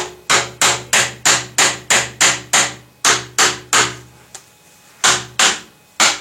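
Hammer blows seating PVC pipe into its fittings: a quick run of about a dozen strikes at roughly three a second, each with a short ring, then a pause near four seconds and three more blows.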